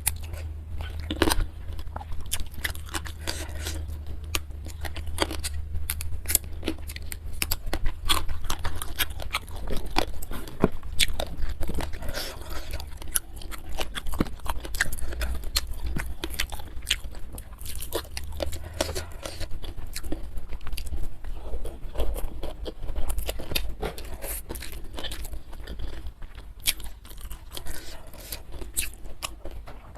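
Close-miked chewing and crunching of food in the mouth, with frequent sharp, irregular crunches and wet mouth clicks, over a low steady hum.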